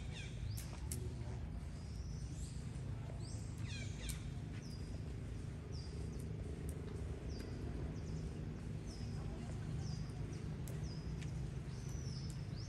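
High-pitched chirping calls repeating roughly every 0.7 s, with a couple of downward-sliding squeals near the start and about four seconds in, over a steady low rumble.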